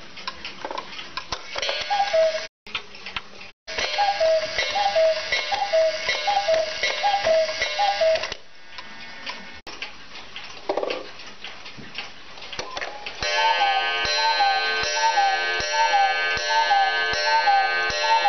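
Black Forest quail cuckoo clocks striking: a cuckoo's two-note falling call repeats about every three-quarters of a second, with the clockwork ticking and clicking. In a pause, the hands are turned by hand. Near the end, another cuckoo call runs over a music-box melody.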